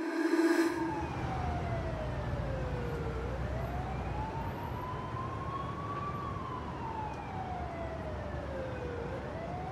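An emergency vehicle's siren in a slow wail, its pitch falling and rising over about three seconds at a time, over a low steady rumble. A held low tone, the loudest sound, cuts off under a second in.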